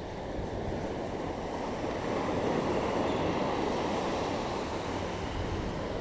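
Ocean surf washing onto the beach, a steady rush that swells over the first couple of seconds and then eases a little.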